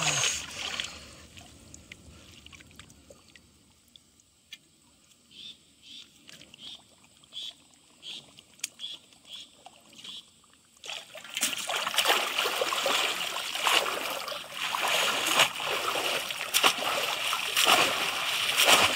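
Shallow pond water splashing around bamboo polo fish traps. For the first ten seconds only a few faint splashes and drips come while a caught fish is grabbed inside the trap. Then, about eleven seconds in, loud continuous splashing starts as people wade through the water and plunge the traps.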